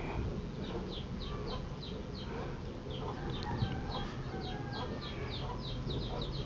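A bird chirping repeatedly in the background: short, faint, high falling chirps, about three a second, over a low hum.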